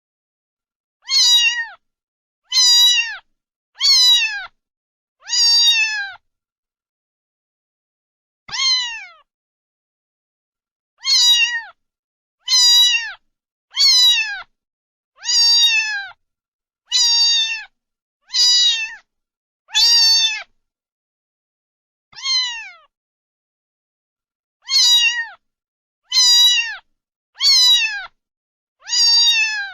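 A cat meowing over and over: about seventeen short, high-pitched meows, each dropping in pitch at the end, mostly in quick runs with a few longer pauses.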